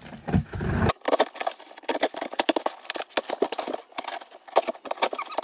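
Scissors slitting the packing tape along the seam of a large cardboard box: an irregular run of scratchy clicks and crackles.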